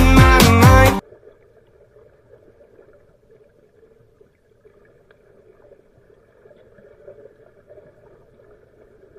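Pop song with singing cuts off abruptly about a second in, leaving a faint, even, muffled noise: an action camera's own audio recorded underwater in a pool.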